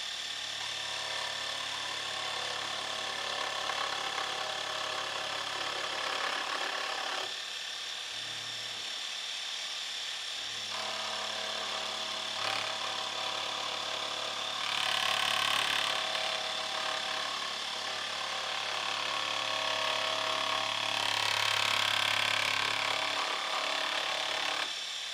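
Dremel Moto-Saw scroll saw running at about half speed, its reciprocating blade cutting a notch in a small wooden strip. A steady motor hum runs throughout, with the sawing noise growing louder twice, about halfway through and near the end.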